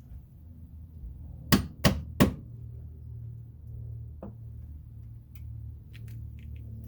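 Three sharp knocks in quick succession, about a third of a second apart, then a single fainter knock about two seconds later, over a steady low hum.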